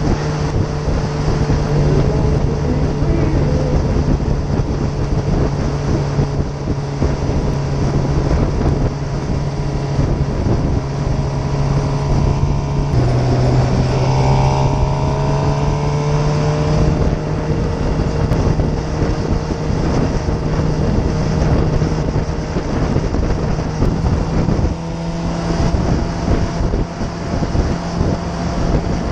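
Suzuki GSX-R750's inline-four engine running as the bike is ridden, with wind rushing over the microphone. About 13 seconds in the engine note steps down and then climbs for a few seconds as the bike accelerates, and it changes again a few seconds before the end.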